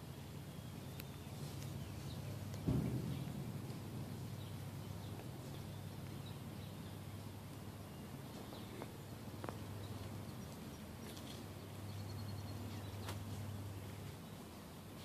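Quiet outdoor ambience: a steady low hum with faint bird chirps, and a single dull thump about three seconds in.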